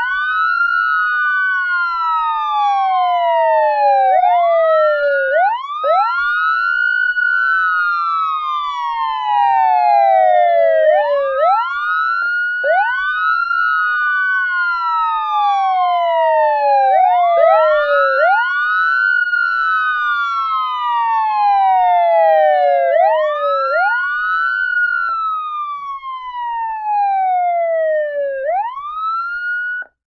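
American police siren wailing, two wail tones slightly out of step, each rising quickly and then falling slowly, repeating about every six seconds.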